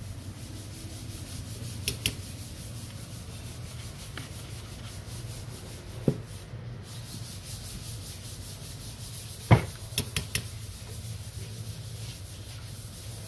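Steady scratchy rubbing or scraping during work on an air-conditioner control board, with a short break about halfway through. Several sharp clicks of small tools are heard, the loudest about nine and a half seconds in.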